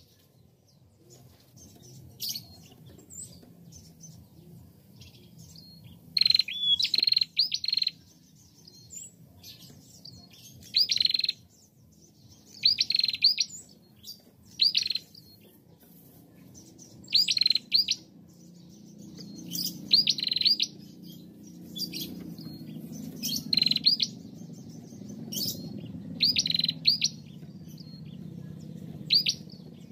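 Female prenjak (ashy tailorbird) calling in short, loud bursts of quick, sharp high notes, a burst every one to three seconds with short pauses between. A faint low rumble grows underneath in the second half.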